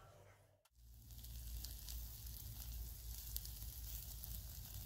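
Fish sizzling in a wire grill basket over glowing charcoal, with scattered small crackles over a low steady rumble, starting after a brief quiet gap under a second in.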